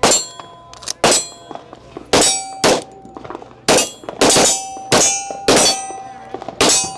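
A Rock Island Armory pistol firing a steady string of about nine shots, roughly one every half second to a second, with the steel silhouette targets ringing after the hits.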